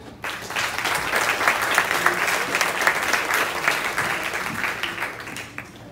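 Audience applauding: a dense round of many hands clapping that starts abruptly and fades away near the end.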